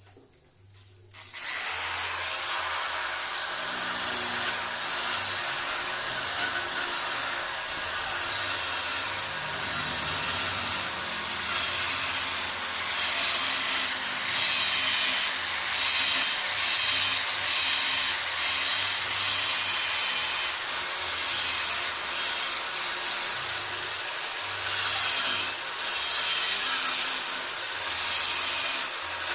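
Power carving tool grinding into the dry deadwood of a loa bonsai trunk: a steady, loud abrasive hiss of wood being cut away, starting about a second in.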